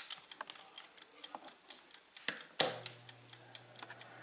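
Mechanical dial of a Big Boss halogen convection oven turned by hand, ticking in quick clicks. About two and a half seconds in, a louder click switches the oven on, and a low steady hum starts under a few more ticks.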